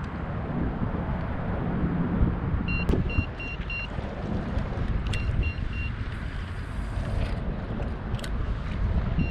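Wind buffeting the microphone over open water, a steady low rumble, with a few sharp clicks. Short high electronic beeps come in quick runs of three or four, about 3 seconds in, about 5 seconds in, and again right at the end.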